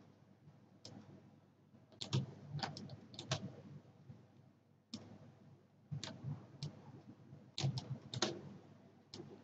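Faint, irregular clicks of a computer mouse and keyboard, single or in quick clusters every second or so, as pen-tool anchor points are placed along an outline.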